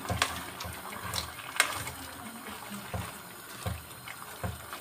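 Wooden spoon stirring and turning long beans and chopped vegetables in a steel cooking pot, with a few sharp knocks of the spoon against the pot over a steady hiss.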